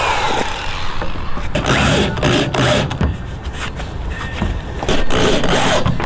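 Corded drill driving screws into a plywood panel. After a stretch of clicks and knocks from the screws and board being handled, the drill runs again about five seconds in.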